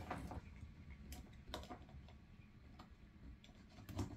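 A few faint, irregular clicks as the TV is switched on at the power, with a slightly louder low knock near the end.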